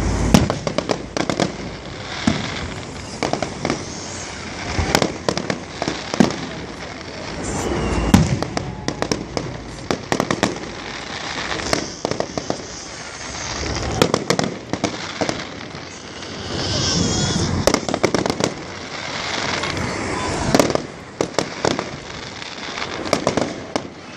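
Fireworks display: a rapid, irregular run of aerial shell bursts with sharp bangs and swells of crackling, and a warbling high whistle about two-thirds of the way through.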